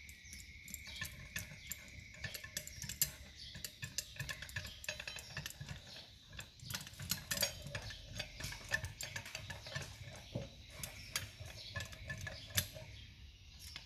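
Irregular small metallic clicks, taps and clinks from hand tools and parts being handled while a 24-volt truck dynamo is taken apart for repair, with a few sharper knocks.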